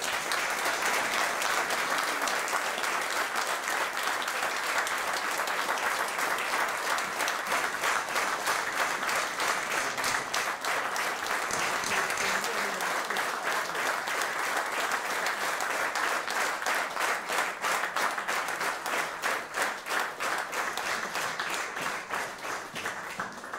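Audience applauding, starting all at once and holding steady, then thinning to scattered claps and dying away near the end.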